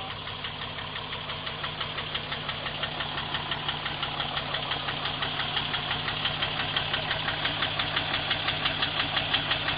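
Truck engine idling with a steady, rhythmic knocking clatter that grows louder.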